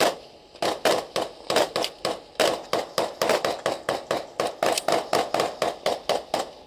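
Rifle fire from a ship's armed guards at an approaching pirate skiff: one shot, then a fast, steady string of sharp shots, about five a second.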